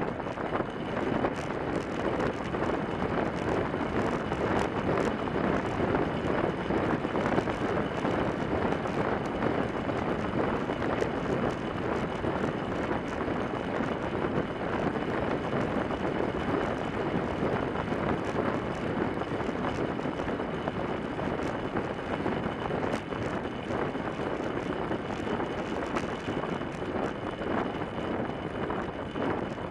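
Steady rush of wind and tyre rolling noise from a track bike riding fast on wooden velodrome boards, picked up by a camera on the front fork, with a faint steady high tone running through it.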